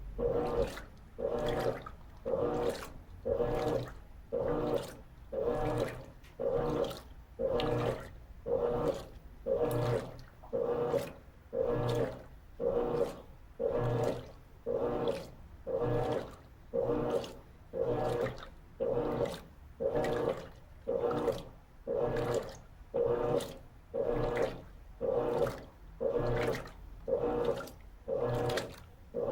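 Electrolux LT13B top-load washing machine agitating its wash load in water during the initial agitation of the Bed and Bath program. The motor hums with each stroke and the water sloshes, in a steady rhythm of about one stroke a second.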